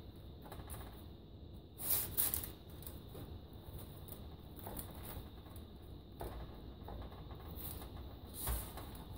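A metal fork prodding and scraping into the crisp, flaky tops of baked puff pastry shells on a baking tray, with faint crackling and rubbing, to flatten the puffed centres. It is louder about two seconds in and gives a knock near the end.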